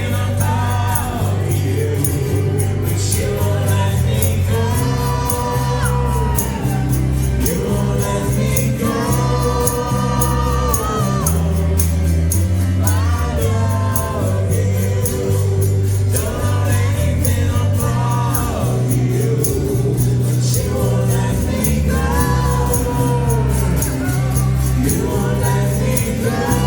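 Acoustic band playing a song: singing over strummed guitar and held bass notes that change every second or two, with a steady rhythmic tick on top.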